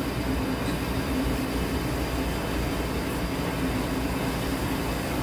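Steady rushing roar of a restaurant kitchen, with a commercial gas burner lit under a pot of boiling water, and a faint low hum beneath it.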